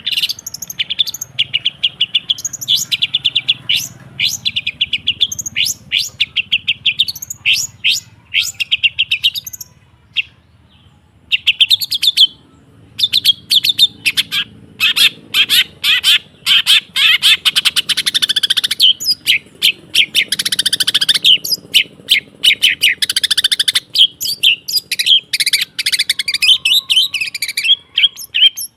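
Long-tailed shrike singing: fast runs of short chattering notes, broken by harsher rasping stretches, with a short pause about ten seconds in.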